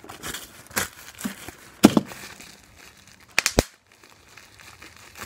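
Plastic bubble wrap crinkling as it is crumpled in the hands, with three sharp pops: one about two seconds in and two close together about three and a half seconds in.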